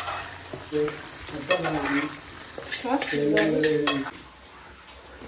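Food frying and sizzling in a pan while a spoon stirs it, tapping against the pan several times in the middle. The sound drops away about four seconds in.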